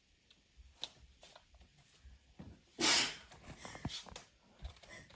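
A single short, loud sneeze just under three seconds in, amid faint rustling and small clicks.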